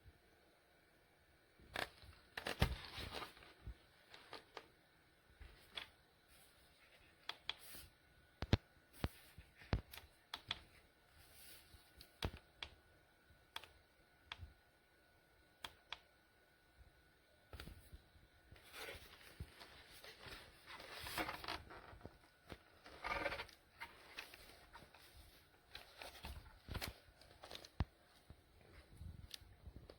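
Handling noise: scattered sharp clicks and knocks with stretches of rustling and scraping, as objects are picked up and moved about.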